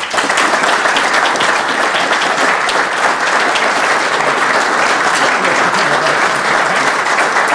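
An audience applauding: dense, steady clapping that breaks out all at once.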